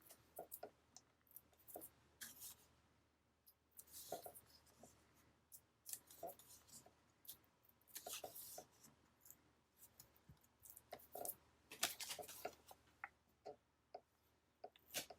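Faint paper-crafting handling sounds: scattered soft rustles and small clicks as paper and small foam adhesive squares are handled and pressed onto a card.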